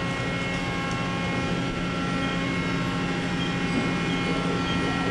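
Mori Seiki NL3000Y CNC lathe running with its spindle indexing through a full turn under C-axis control: a steady machine hum with several steady tones.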